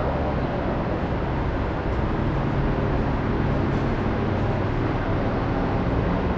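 City street traffic noise: a steady wash of sound over a constant low engine hum.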